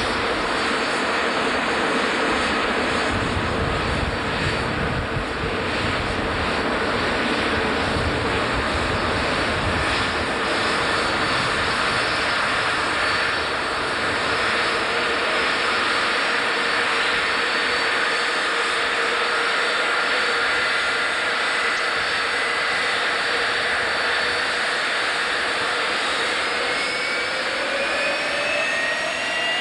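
Boeing 747-136 with four Pratt & Whitney JT9D turbofans at taxi power, passing close by: a steady jet whine over a broad rush. Near the end the whine rises in pitch.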